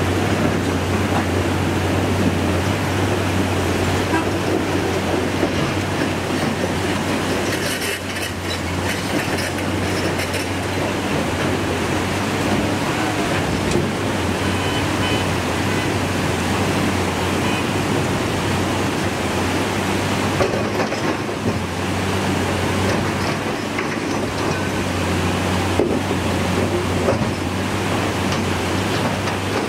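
Muddy floodwater rushing over rocks in a washed-out river crossing, a steady loud rushing noise, with a low, constant engine drone from vehicles and a backhoe underneath it.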